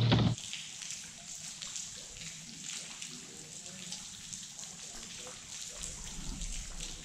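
Rain falling on the water and the boat: a soft steady hiss with many small drop ticks. A loud low steady hum cuts off abruptly just after the start.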